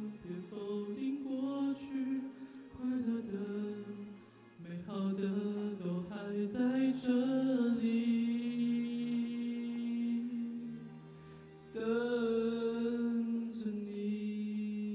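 A young male voice singing a slow Mandarin song into a handheld microphone, with long held notes in the middle and from about twelve seconds in to the end.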